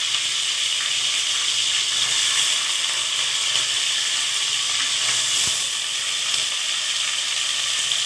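Diced potatoes, freshly dropped into hot oil with mustard seeds, cumin and curry leaves, sizzling steadily in an aluminium pot as they start to fry.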